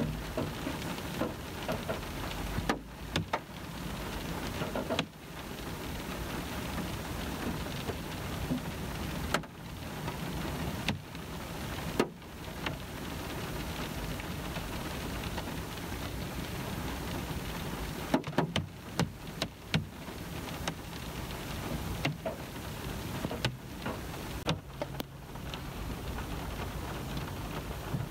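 Rain falling on a car's roof and windows, heard from inside the car: a steady patter with scattered sharper taps of single drops.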